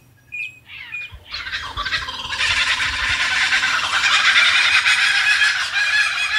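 Laughing kookaburra calling: a couple of short chuckles, then about a second and a half in the call builds into rapid, growing cackling laughter that carries on.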